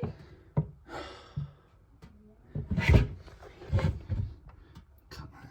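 Irregular knocks, clunks and rubbing of objects being handled, the loudest about three seconds in.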